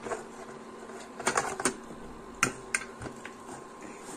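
Steady hum of a running induction cooktop under a covered steel pot, with a few scattered light clicks and knocks, a quick cluster of them about a second and a half in, from the steel lid and pot being handled.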